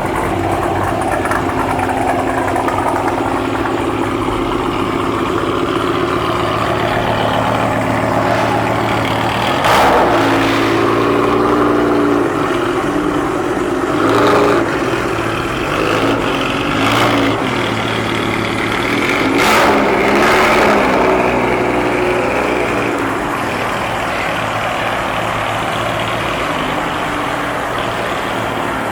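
Car engines idling, with an engine revved in about four short blips through the middle.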